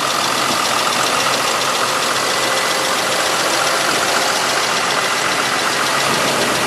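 Ford F650's 5.9-litre Cummins inline-six diesel idling steadily, with a fast, even ticking clatter.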